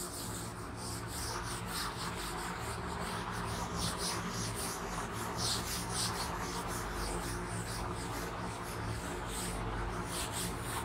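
A duster wiping chalk off a blackboard: quick repeated rubbing strokes across the board surface.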